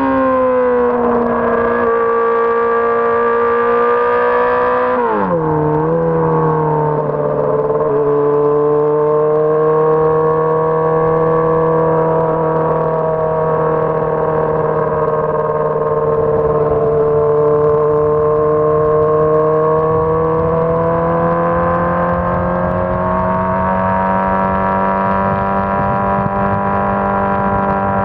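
Honda CBR600RR's inline-four engine running under way at high revs. About five seconds in it drops sharply to lower revs, then holds steady and slowly climbs in pitch.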